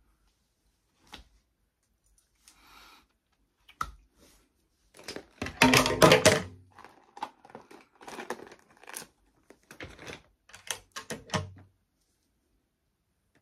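Stiff pink plastic zip pouch being handled: crinkling and rustling in bursts, loudest about six seconds in, with a few sharp clicks before it.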